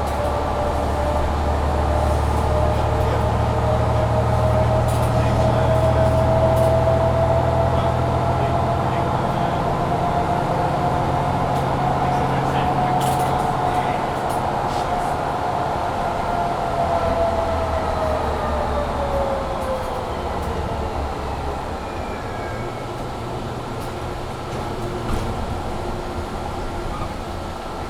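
Inside a Mercedes-Benz Citaro C2 G articulated bus under way: the engine pulls hard under load for the first half with a drivetrain whine that rises slightly, then the engine eases off and the whine falls in pitch over several seconds. A steady rush from the heating blower runs underneath, with a few light rattles.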